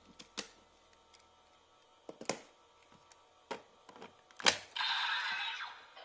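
Sharp plastic clicks as a Kobuta 3 Kyoudai Wonder Ride Book is handled and slotted into a DX Sword of Logos Buckle toy belt. Near the end the buckle's small speaker sets off a loud electronic sound effect lasting about a second.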